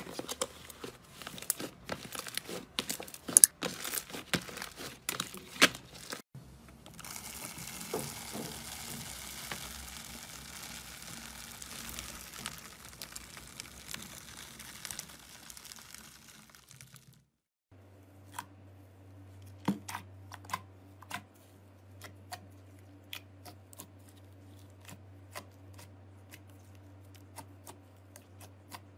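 Slime being worked by hand, in three parts. First, a fluffy slime is stretched and squeezed, making many sharp sticky clicks and pops. Then a metal scoop pushes through foam-bead slime with a steady crunchy crackle, and after that a glossy slime is pressed and folded, with sparser wet clicks over a faint low hum.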